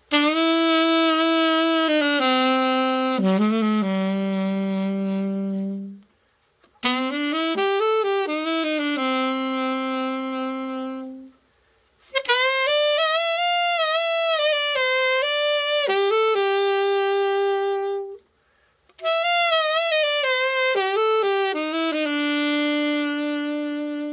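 Yamaha YAS-280 alto saxophone being play-tested after a full overhaul: four short melodic phrases of held notes, some with vibrato, with brief pauses for breath between them.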